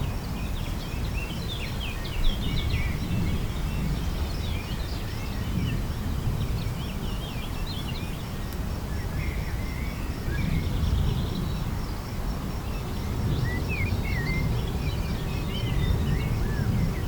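Birds chirping and calling in short, scattered phrases over a steady low background rumble.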